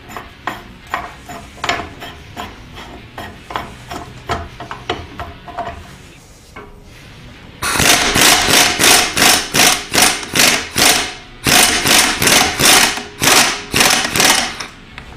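Pneumatic impact wrench hammering in two runs of a few seconds each, starting about halfway through, spinning the hub puller's forcing screw back out now that the drum has broken free of the tapered axle. Before that, light regular metallic clicking.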